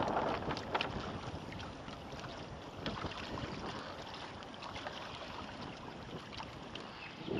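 Water lapping and splashing against the hull of a Hobie Adventure Island sailing trimaran under way, with irregular small splashes, loudest at the start. Wind is on the microphone.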